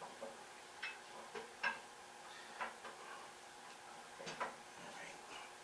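A handful of faint, irregularly spaced light clicks and taps, like metal hardware being handled, with about six or seven ticks over several seconds.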